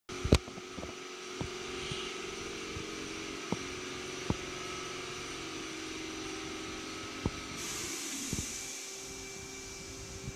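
Nakamura-Tome WY-100 CNC lathe powered up and idling, a steady machine hum. A sharp knock comes right at the start and a few light clicks follow, and a high hiss comes in about three-quarters of the way through.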